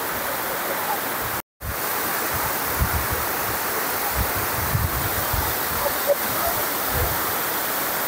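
Steady rushing of a waterfall, with the sound cutting out completely for a moment about a second and a half in.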